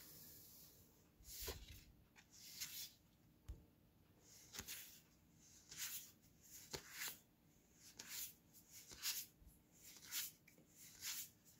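Magic: The Gathering trading cards sliding against each other as they are moved one at a time from the front of a hand-held stack to the back: a run of faint, short swishes, one or two a second.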